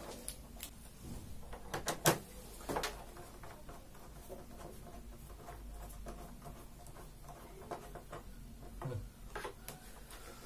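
Scattered small clicks and knocks of screws, spacers and a hand screwdriver being handled and fitted against the plastic back panel of a flat-screen TV, the sharpest click about two seconds in.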